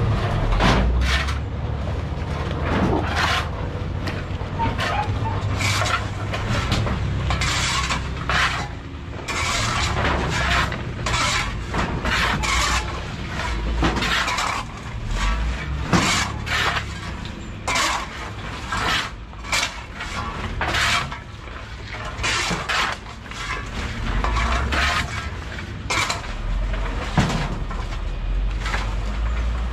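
Metal shovels scooping and turning a heap of copra, coconut meat in its hard half-shells, with repeated, irregular scrapes and clatters of the pieces tumbling against each other and the blades.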